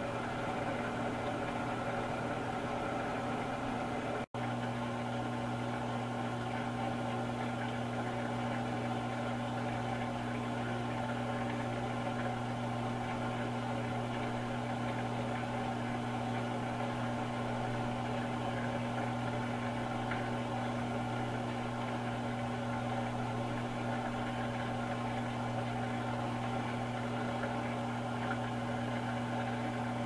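Electrolux LWI13 washing machine in its final spin, the motor and drum running with a steady, even hum at constant speed. The sound drops out for an instant about four seconds in.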